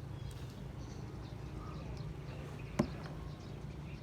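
Faint, scattered bird chirps over a steady low hum, with one sharp click a little under three seconds in.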